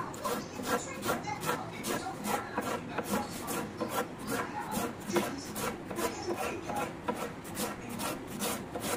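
Knife shredding a cabbage head on a wooden chopping board: a steady run of quick slicing strokes, about three a second, each cutting through the leaves onto the board.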